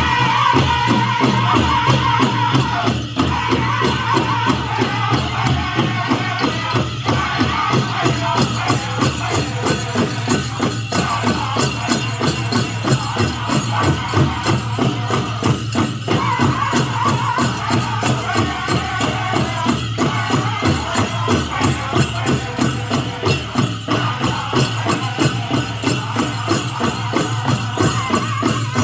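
Powwow drum group singing a chicken dance song: the big drum struck in a fast, steady beat under group singing, with the jingling of the dancers' bells.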